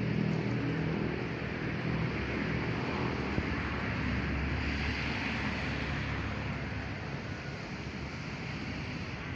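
Steady rushing outdoor noise of traffic, with a motor's low hum fading away in the first couple of seconds.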